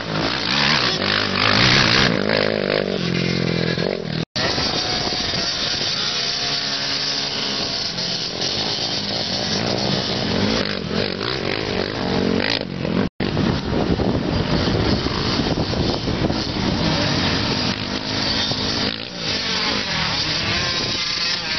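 Engines of ATVs (quads) and dirt bikes revving up and down as they ride and jump on a dirt track, several machines heard at once. The sound cuts out for an instant twice, about four seconds in and again near the middle.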